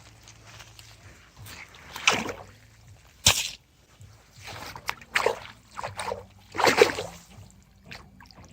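Lake water splashing in irregular bursts, with one sharp splash and a louder one near the end, as a hooked fish thrashes at the surface. A faint steady low hum runs underneath.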